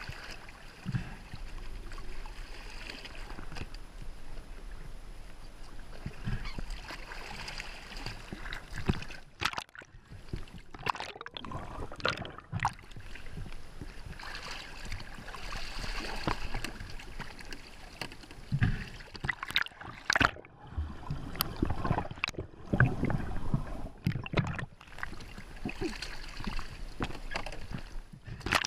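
Water sloshing and gurgling around a GoPro in its waterproof housing, with irregular knocks and splashes.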